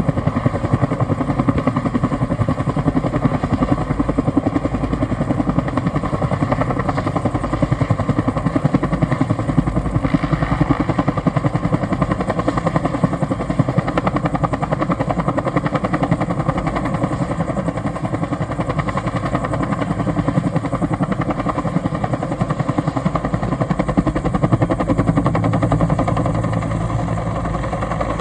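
Bell 212 helicopter running close by, its two-bladed main rotor beating in a steady, fast rhythm over a continuous engine noise.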